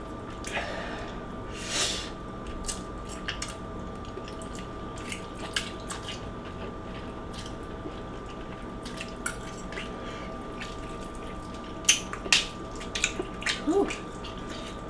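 Scattered small clicks and taps from eating: forks against a metal baking tray, and mouth sounds. A few sharper clicks come near the end, over a faint steady hum.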